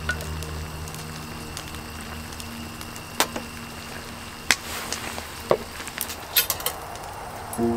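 A pot of hot pot simmering with a soft hiss, with a handful of sharp pops and crackles. Background music with held notes fades out over the first few seconds.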